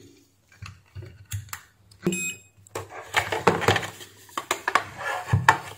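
Handling noise from an opened plastic steam-iron housing and its cord being picked up and turned over: scattered clicks, taps and rattles that come thicker in the second half. About two seconds in there is a short, high electronic beep, typical of a multimeter set to continuity.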